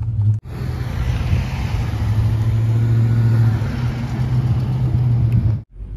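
Ford F-150 pickup truck's engine running at a steady speed, an even drone. It cuts off suddenly near the end.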